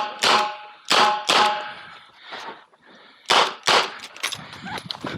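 Smith & Wesson 929 9mm revolver firing six shots in three quick pairs, the first two pairs followed by a ringing tone like struck steel, then a few lighter clicks and knocks near the end.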